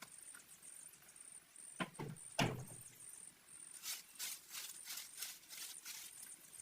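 Two sharp knocks, then from about four seconds in a quick run of sharp taps, several a second.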